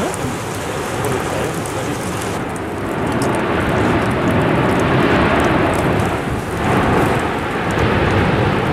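Continuous rushing roar of a lava fountain jetting from an erupting volcanic vent. It swells louder about three seconds in and again near the end, with faint crackles over it.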